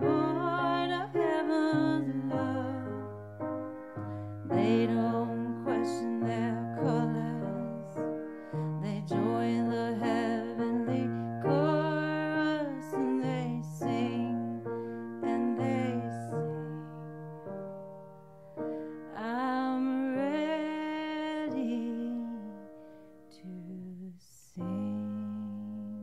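A woman singing a slow, gentle ballad with vibrato over a soft piano accompaniment.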